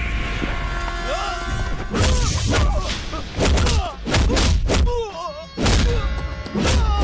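Background music with a heavy bass, overlaid from about two seconds in with a string of punch and hit sound effects, several sharp thuds in quick succession.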